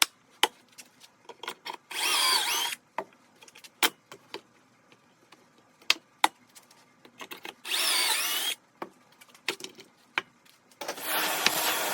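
A power drill run in two short bursts, its pitch wavering. Between the bursts come scattered clicks and knocks of tools and wood being handled, and near the end a steady loud noise starts.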